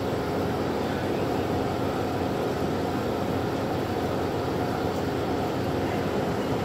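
Helium boiling off from an MRI scanner's superconducting magnet and venting through its quench pipe during a quench: a steady rushing hiss.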